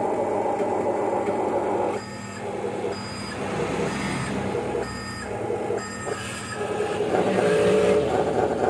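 An RC construction model's motor and hydraulic pump whine steadily. About two seconds in, an electronic reversing beeper starts, sounding about once a second over the running machine.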